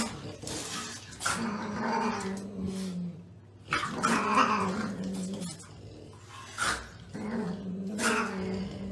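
Small dog growling at a cat while they play-fight, in about four drawn-out bouts with short sharp sounds between them.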